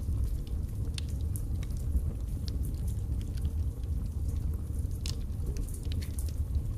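Birch logs burning in a fireplace: irregular sharp crackles and pops over a steady low rumble of the flames, with one louder pop about five seconds in.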